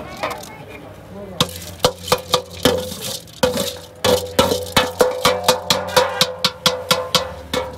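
Steel ladle scraping and knocking against a steel tray as rice is tipped off it into a large cooking pot. From about a second and a half in there is a run of sharp metallic knocks, three or four a second, with the tray ringing.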